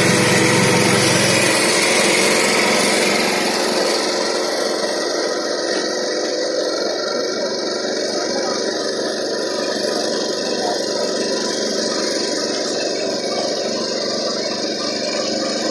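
Small engine of a BCS 730 two-wheel tractor with rotary tiller running. It is heavier at first, drops in the first few seconds, and then runs steadily.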